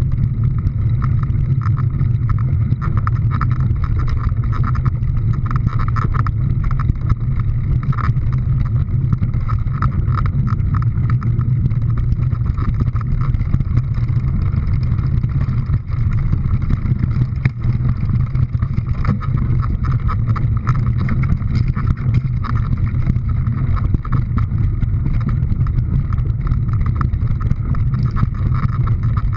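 Steady, loud engine rumble of a running vehicle, unchanging throughout.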